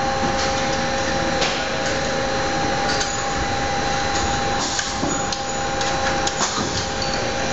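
Haas CNC lathe sending all axes to their home position: a steady servo whine of two tones over an even mechanical running noise, with a few light clicks. The whine stops at the very end as the axes reach home.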